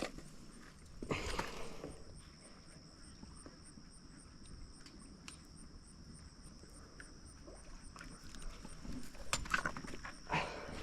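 Insects trilling steadily at a high pitch, with a faint, evenly repeated chirp above it. Short rustling handling noises come about a second in and again near the end.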